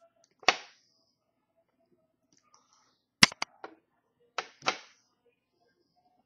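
Homemade shampoo and baking-soda slime being squeezed and poked by hand, giving off sharp pops and clicks: one about half a second in, then a quick cluster of several from about three seconds in.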